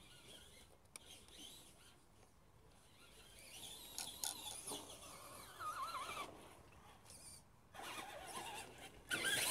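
Traxxas Skully electric RC monster truck's motor whining, rising and falling in pitch with the throttle. It gets suddenly louder near the end as the truck comes up close.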